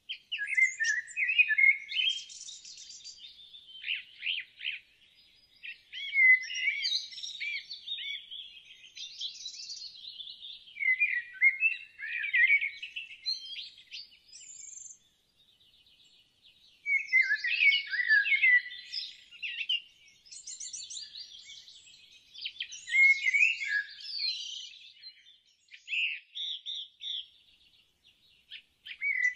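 Songbirds chirping and singing in busy bursts of quick, high, overlapping calls and trills, with short pauses between.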